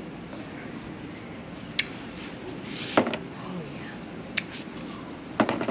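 Jalapeno peppers being picked off the plant: four short, sharp snaps about a second apart.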